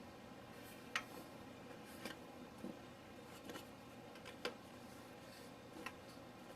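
Faint handling clicks and taps of plastic parts, about six sharp ones spread unevenly, over a low steady hum.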